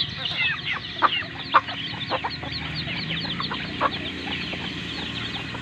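Chickens clucking while they feed, with rapid high peeping throughout and a couple of sharp clicks about a second and a half in.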